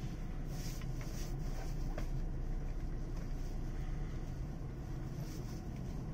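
Steady low hum inside a JNR 185-series train car standing at the platform, its onboard equipment running while it waits to depart. There is a faint click about two seconds in.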